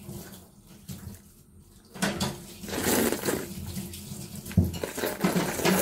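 Natto being slurped and chewed straight from its tray with chopsticks: wet sucking and smacking mouth noises, starting about two seconds in after a quieter opening.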